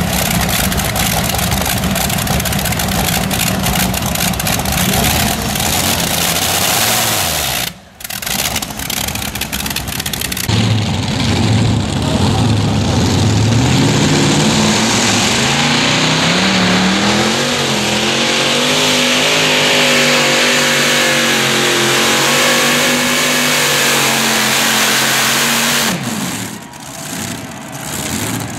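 Modified pulling tractors' multi-engine powerplants at full noise. For the first eight seconds one runs rough and crackling. After a brief drop, a second tractor's engines rev up over a few seconds and hold a steady high pitch through its pull, dropping off a couple of seconds before the end.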